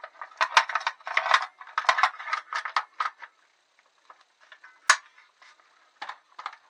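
Parts of an M60 airsoft gun clattering and clicking as the barrel is fitted back into the gun: a rapid run of knocks and rattles, then scattered ticks and one sharp click about five seconds in.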